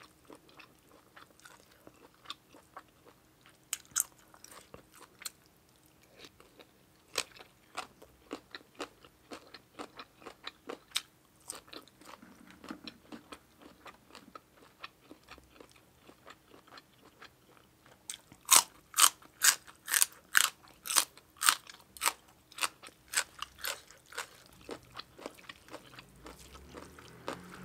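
Close-up eating sounds: wet chewing and mouth clicks of spicy papaya salad, then, about two-thirds of the way through, a run of loud, crisp crunches, a little over two a second, as a crisp raw vegetable is bitten and chewed.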